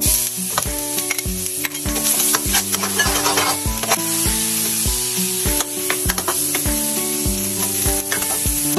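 Minced garlic sizzling in hot oil in a stainless steel wok, stirred and scraped with a metal spatula. Acoustic guitar music plays underneath.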